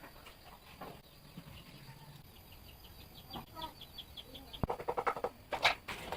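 Birds calling: a quick run of short, high chirps, then a sharp click, a fast rattle and louder clattering knocks in the last second and a half.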